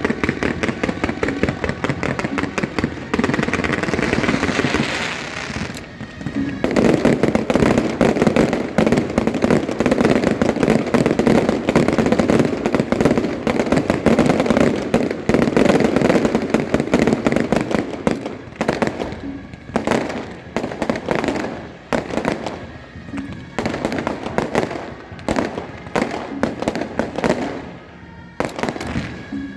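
Fireworks going off in a loud, rapid crackling barrage that builds about a quarter of the way in and runs nearly unbroken for some ten seconds, then thins into separate bangs and crackles in the last third.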